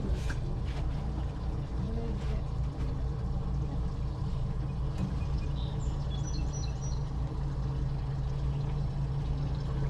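Big four-stroke Mercury outboard engines idling with a steady low hum, really quiet.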